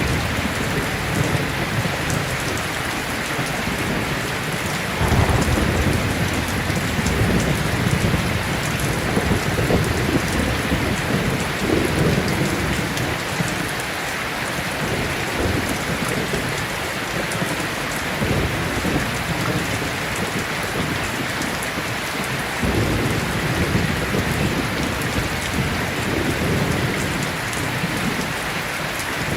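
Steady, heavy rainfall hissing, with low rolling thunder rumbling in several long swells, the first coming in suddenly about five seconds in.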